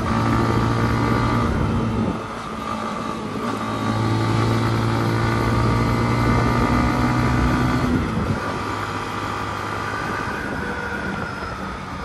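Yamaha MT-15 motorcycle engine running under way, with wind and road rush. The engine note holds steady, eases off about two seconds in, picks up again, and eases off again about eight seconds in.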